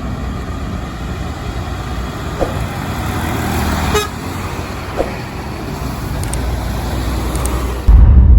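Road traffic noise, with a couple of faint short beeps in the middle; a loud low rumble comes in near the end.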